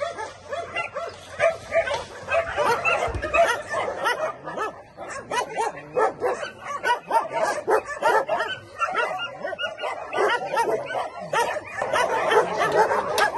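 Several dogs barking and yelping at once, the short calls overlapping without a break.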